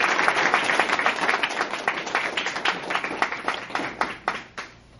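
Audience applauding, the clapping thinning out and dying away just before the end.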